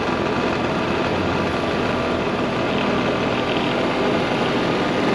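Street go-kart driving: a steady motor drone mixed with wind rushing over the microphone mounted on the kart.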